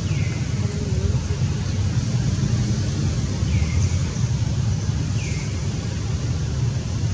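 A steady low rumble, with three short high calls that each fall in pitch: one at the start, one about three and a half seconds in and one about five seconds in.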